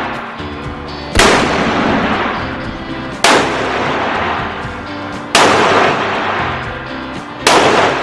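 Four loud gunshots, evenly spaced about two seconds apart, each followed by a long echoing tail, over background music.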